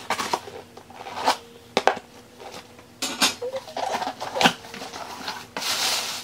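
A mystery box's packaging being opened by hand: scattered clicks and scrapes, then paper and packing rustling from about three seconds in, loudest near the end.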